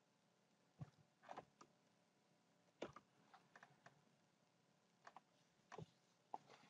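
Faint, irregular computer keyboard keystrokes: about ten light taps spread over several seconds, some in quick pairs.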